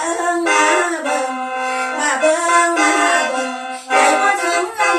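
Lam toei music in which a khaen, the bamboo mouth organ, plays sustained chords under a moving melody during an instrumental passage between sung verses.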